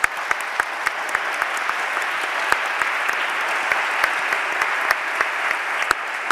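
Audience applauding steadily after a speech, with individual sharp claps standing out over the dense clapping.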